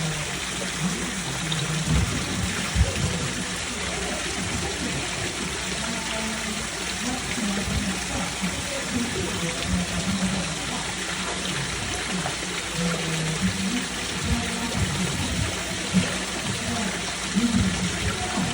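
Steady rush of running water, with a few low thumps in the first few seconds.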